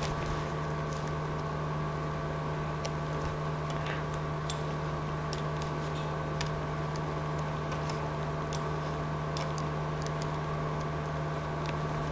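Steady electrical or machine hum with a strong low tone, with scattered sharp computer mouse clicks as parts are dragged around the laser-cutter software.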